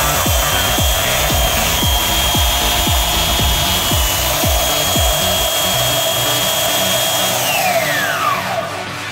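A 750W belt sander running unloaded with a steady high whine, its motor winding down with a falling whine after it is switched off about seven seconds in. A regular thumping beat of background music plays under it for the first half.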